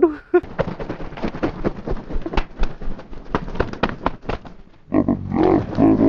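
Pigeon wings flapping in a rapid, irregular run of sharp claps as a racing pigeon is flown to a hen held in the hand as a lure. Near the end a man's voice rises in a brief wordless call.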